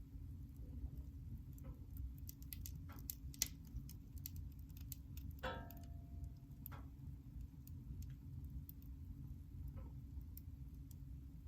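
Wood fire burning in a fireplace, crackling with scattered sharp pops over a steady low rumble, with a brief higher note about halfway through.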